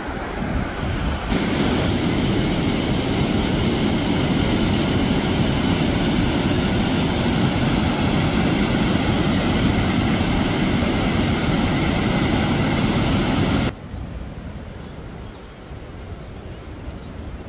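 Steady rushing of whitewater at Sandstone Falls, with no distinct pitch. It grows louder about a second in and drops abruptly to a softer rush near the end.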